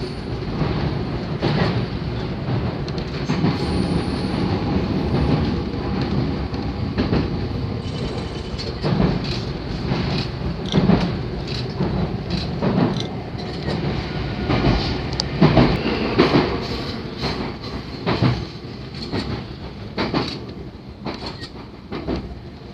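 313 series electric train running, heard from inside the carriage: a steady rumble with wheels knocking over rail joints. A faint high wheel squeal is heard now and then.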